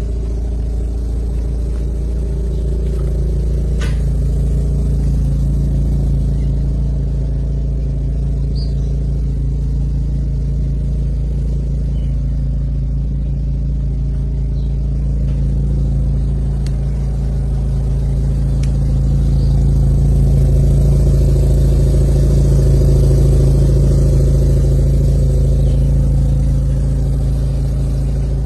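Mazda RX-7's two-rotor rotary engine idling steadily, a little louder for several seconds past the middle.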